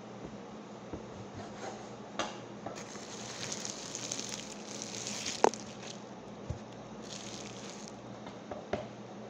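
Meat cleaver chopping raw sheep meat on a wooden chopping board: a few separate chops, the sharpest about five and a half seconds in, between stretches of hissy rustling and wet squishing as the meat pieces are handled. A steady low hum runs underneath.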